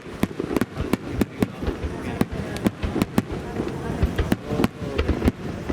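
Large Japanese starmine fireworks display: a rapid, irregular volley of shell bursts, sharp bangs coming about three a second, over a murmur of onlooker voices.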